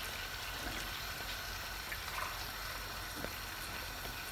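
Frying pan of chicken, potato and carrot under freshly added coconut milk heating on the stove, a quiet steady sizzling and bubbling hiss with a few soft pops.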